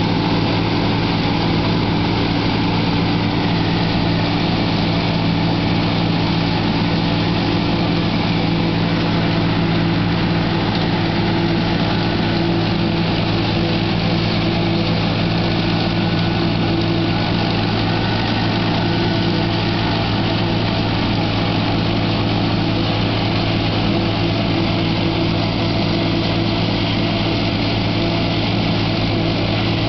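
John Deere 4240 tractor's six-cylinder diesel running steadily under load, driving a New Holland 900 forage harvester that chops standing corn for silage, with the harvester's machinery running along with it.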